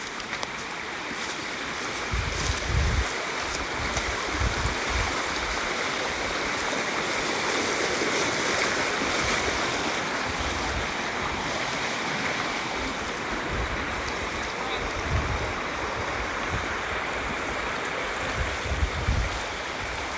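River water flowing steadily, a continuous rushing noise. Brief low rumbles break through a few times, near the start and again near the end.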